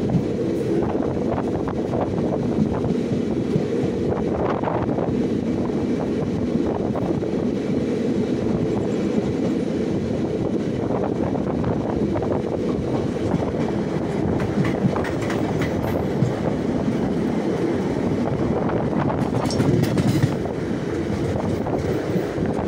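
Passenger express train (11751 Chirimiri–Rewa Express) running at speed, heard from on board by an open door or window: a steady rumble of wheels on rail with a continuous clickety-clack of clicks over rail joints.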